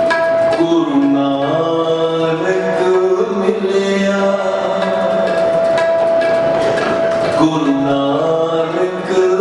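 Sikh kirtan on harmoniums and tabla. The harmoniums play a stepping melody over a long held note, with tabla strokes and men's voices singing along. The melody breaks off briefly near the end and starts again.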